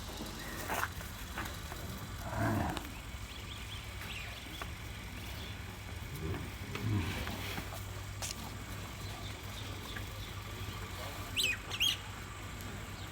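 Bulls lowing in short low calls three times, with a bird chirping twice near the end.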